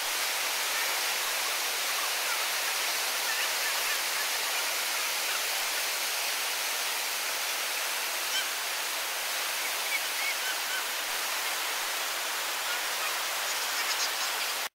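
Whitewater river rapid rushing steadily: a constant, even roar of churning water over rocks.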